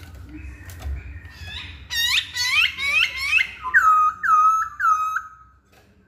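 Poksay hongkong laughingthrush singing: a quick run of sweeping whistled notes from about two seconds in, then three loud whistles that each drop and level off, stopping shortly before the end.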